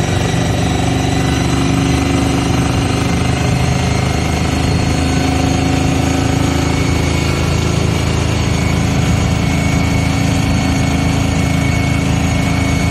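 A vehicle engine running steadily at an even pitch, with no revving.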